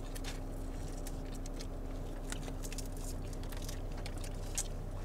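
Close-up mouth sounds of someone eating crab meat: soft scattered clicks and smacks of chewing, over a steady low hum in the car.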